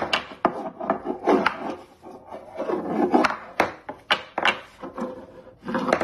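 An otter's paws scratching and rubbing at a bare wooden tray: irregular scrapes and sharp taps, several a second.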